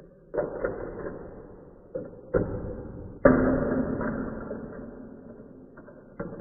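Marbles rolling along a Gravitrax marble run's plastic track and metal rails, with sharp clicks and knocks as they drop and strike pieces or each other, each followed by a fading rolling rumble. The loudest knock comes about three seconds in.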